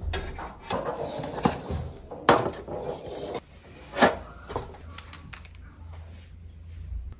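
Handling noises as a reed diffuser is unpacked: cardboard packaging rustling and wooden reeds sliding out, with a loud rustle about two seconds in. A sharp knock about four seconds in as the glass bottle is set down on the tray, then faint small clicks as its cap is taken off.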